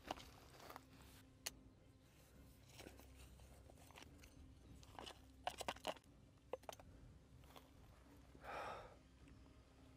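Faint crunching and scraping of loose shale stones as a small hand shovel digs out a buried wooden box, with a few sharper clicks of stone knocking together around the middle and a short soft rush of noise near the end.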